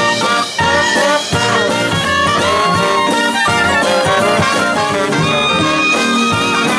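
Live jazz band playing, with trumpet, saxophone and clarinet together in the front line over the rhythm section. There are two short dips in the sound about half a second and just over a second in.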